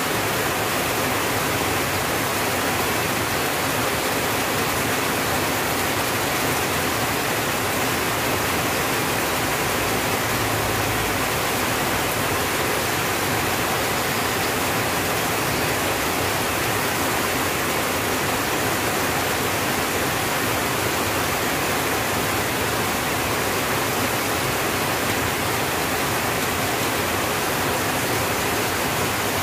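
Rain falling steadily on a tin roof: a dense, even hiss that holds the same level throughout.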